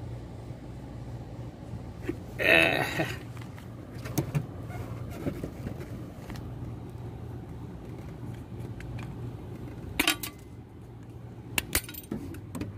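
Metal clicks and rattles of the wire terminals and connector block being worked loose and pulled off a hermetic compressor's terminal pins. The loudest rattle comes about two and a half seconds in, with sharper clicks near the end, all over a steady low hum.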